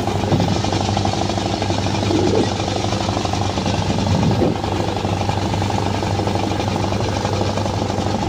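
Fishing boat engine running steadily at cruising speed, an even, rapid chugging with a constant low pitch.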